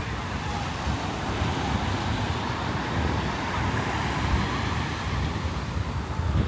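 Ocean surf washing onto a beach, a steady hiss, with wind buffeting the microphone in an uneven low rumble.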